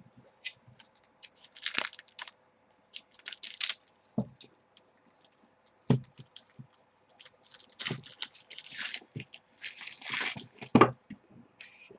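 Foil trading-card pack being torn open and crinkled by hand, with scattered clicks and a few knocks on the table, the loudest near the end.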